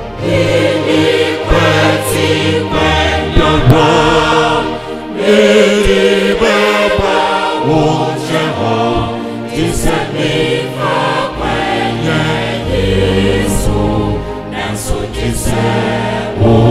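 Mixed-voice church choir singing a hymn in parts, accompanied by keyboard and trumpet.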